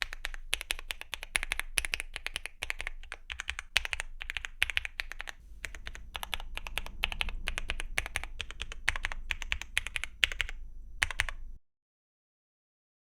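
Continuous typing on a Weikav Lucky65 mechanical keyboard with factory-lubed Gateron Milky Yellow Pro linear switches and Cherry-profile PBT keycaps: a fast, uneven stream of key clacks. It stops abruptly near the end.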